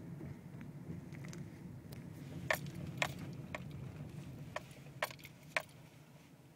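Steady low rumble of a car's engine and tyres heard inside the cabin, easing off as the car slows. About halfway through, a run of sharp clicks starts, roughly every half second, six in all.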